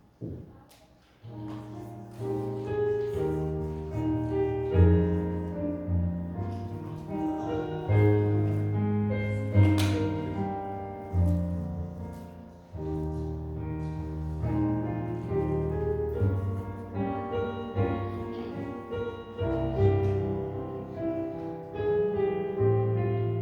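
Piano playing slow chords, each struck and left to fade, starting about a second in.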